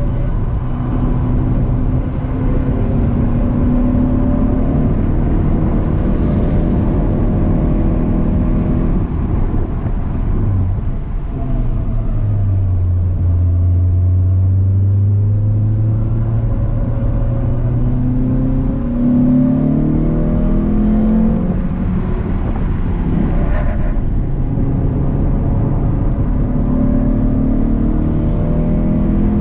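Renault Clio 182's 2.0-litre four-cylinder engine heard from inside the cabin, rising and falling in pitch as it accelerates, changes gear and brakes, over steady road and tyre noise. About twelve seconds in it drops to a low, steady pull for a few seconds, then climbs in pitch through the gears again.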